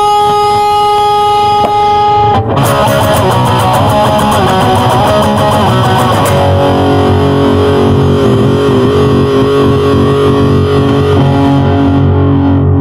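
Stratocaster-style electric guitar with distortion. A held chord rings for about two seconds, then it plays fast strummed chords, which stop abruptly at the end.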